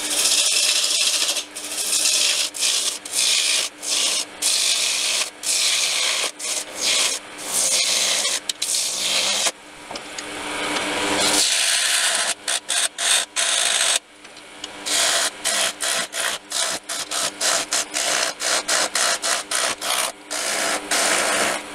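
Wood lathe turning a pear-wood blank while a hand-held turning tool cuts it: a hissing scrape broken by many short gaps as the tool is engaged and lifted, with the lathe's faint steady hum beneath. The wood is soft and loose and tears out in chips more than it cuts cleanly.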